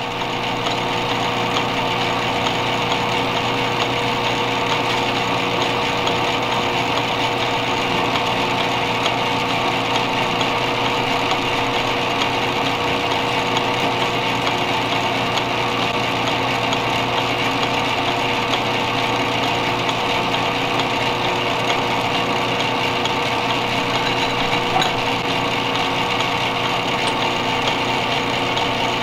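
Metal lathe running steadily while machining a small soft-steel bolt, its motor and gearing giving an unbroken hum with several steady tones.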